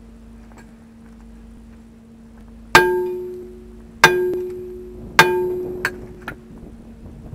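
Hammer striking the steel wheel hub of a truck's rear axle: three hard blows a little over a second apart, each ringing out and dying away, followed by two light taps.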